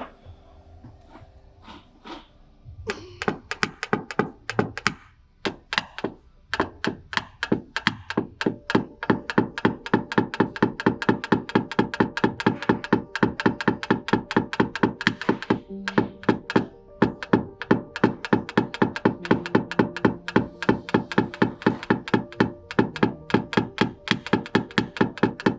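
A hammer tapping a tap-down tool on a car's sheet-metal body panel to knock down high spots in paintless dent repair. A few scattered taps come first, then a long run of quick, even strikes at about four a second.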